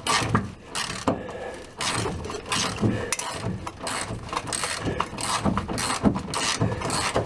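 Ratchet wrench clicking in quick, uneven strokes as a rusty bolt is backed out of a VW Beetle's underside.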